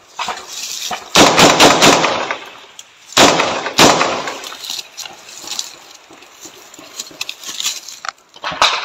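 Assault rifle fire at close range: a quick string of shots about a second in and another about three seconds in, each trailing off in echo, with scattered single shots between and after.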